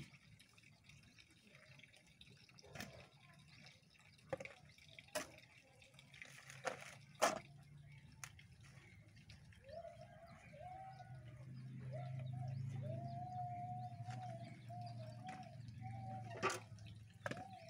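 Scattered knocks and scrapes of a hoe digging into soil and working around plastic pots. Over the second half a low hum rises, with a wavering, drawn-out pitched sound held in long stretches above it.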